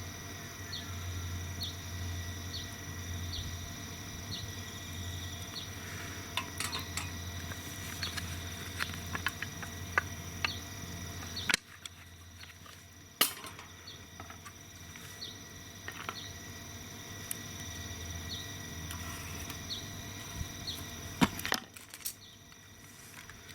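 Cedar-wood campfire crackling, with scattered sharp pops. In the background a regular high chirp repeats about every 0.7 seconds.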